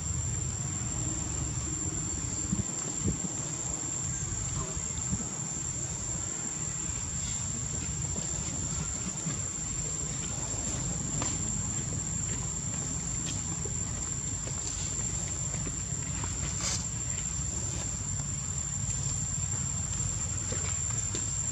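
Insects chirring in one steady, high-pitched drone, over a low rumble.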